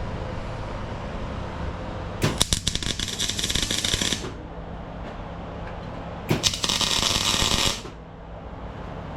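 Two short runs of arc welding, a crackling sizzle about two seconds long and then another of about a second and a half, over a steady low hum.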